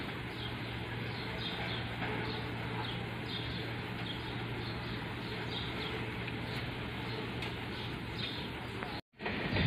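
Small birds chirping in short, repeated calls about once or twice a second over a steady low hum. The sound drops out briefly near the end.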